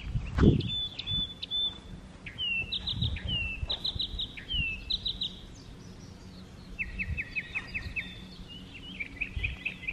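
Songbirds singing: a slurred note followed by a quick run of high notes, three times over, then a run of about seven even, slightly lower notes, and more chirping near the end. A low thud about half a second in.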